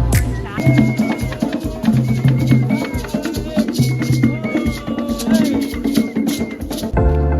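Music with a busy beat of shaker-like rattles and hand percussion under short melodic phrases.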